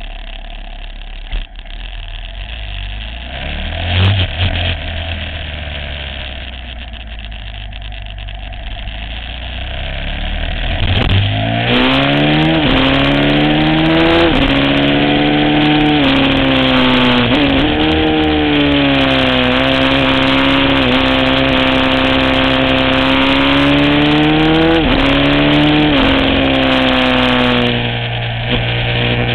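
Onboard sound of an Aprilia SXV supermoto's V-twin engine: running low and quiet with a brief throttle blip, then from about eleven seconds in accelerating hard, its pitch climbing and dropping back at each upshift several times, with wind rush over it. Near the end the engine note falls away as the bike slows.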